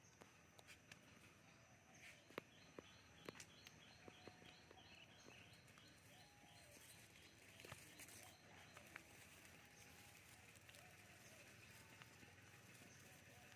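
Faint outdoor ambience with a bird calling: a run of quick, evenly repeated high chirps a few seconds in, among scattered faint clicks.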